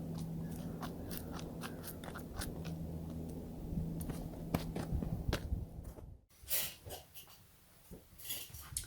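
Knife blade cutting into wood in a run of short crunching strokes and clicks over a steady low hum. The sound drops out suddenly about six seconds in, leaving a few scattered clicks.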